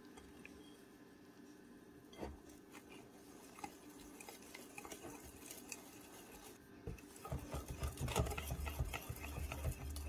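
Wire whisk stirring flour and coconut cream in a glass bowl, faint scraping with light ticks against the glass. About seven seconds in the stirring gets busier and louder as the mix turns into a wet batter.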